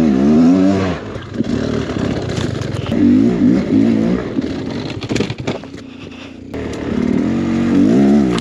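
Two-stroke engine of a Beta X-Trainer 300 dirt bike revving in three surges as it claws up rocky climbs, the revs dropping away between them. Scattered clattering and scraping of the bike over rock.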